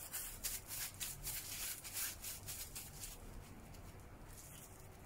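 Faint rustling of disposable plastic gloves handling ground pork while it is shaped into a meatball, in soft irregular strokes that die away over the last second or two.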